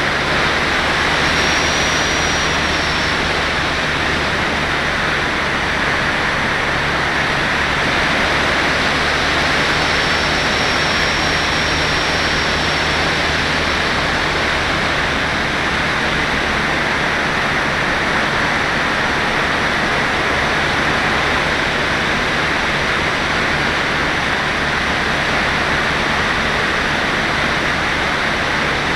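Steady rushing wind noise from airflow over the onboard camera microphone of an FPV radio-controlled glider in flight, with a faint high whistle twice in the first half.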